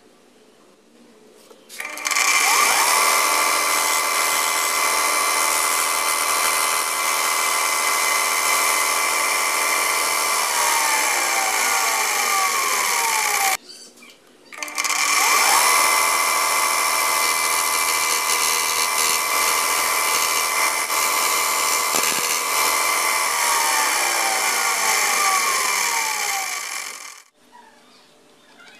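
Bench belt sander running twice. Each time its motor whines up to speed, runs steadily with a hissing sanding noise, then drops in pitch as it winds down, and the sound cuts off abruptly.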